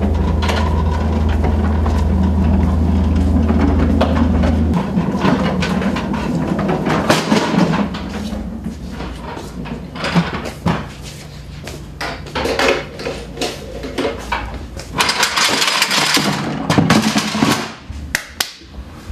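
Yellow mop bucket and janitor's closet gear being handled: scattered knocks and clatter, with a rushing noise near the end. Under the first few seconds runs a steady low hum that stops abruptly.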